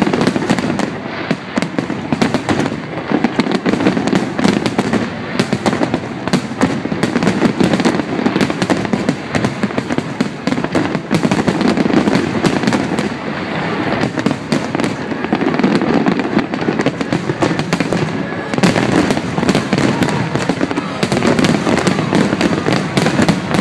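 Aerial firework shells bursting in a dense, unbroken barrage: a rapid stream of bangs and crackles with no pause.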